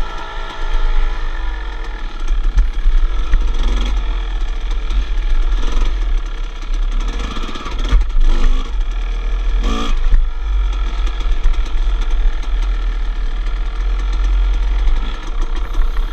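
Two-stroke 250 dirt bike engine running on a trail ride, revving up and down as the throttle is worked. There are a couple of sharp knocks, about eight and ten seconds in.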